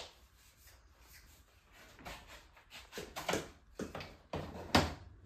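A canister vacuum cleaner's hose and wand being handled with the motor off: irregular rustles and light knocks of plastic, coming more often in the second half, the loudest a sharp clunk near the end.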